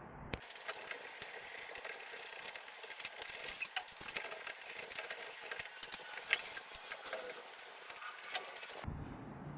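Rapid small mechanical clicking and rattling of hand tools working on a door's panic-bar exit device as its push bar is opened up, starting about half a second in and stopping shortly before the end.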